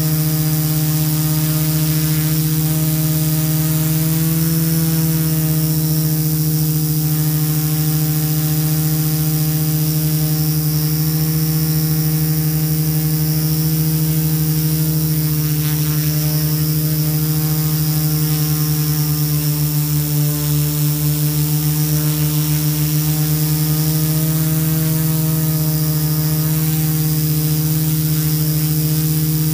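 Alien 680 multirotor drone's electric motors and propellers droning steadily, heard up close from its own camera. The drone is taking off and climbing, and the hum pulses in loudness for a few seconds about two-thirds of the way through.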